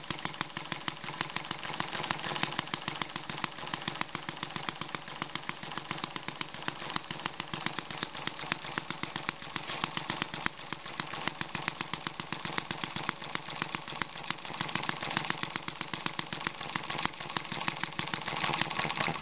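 Small single-cylinder model gas engine running steadily, firing in a quick, even stream of sharp pops, with a faint steady tone underneath.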